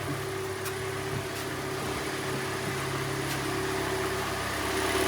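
Freshly rebuilt Hyundai Elantra 1.8 G4NB four-cylinder petrol engine idling steadily and quietly, with no knock, after repair of scuffed pistons and cylinders.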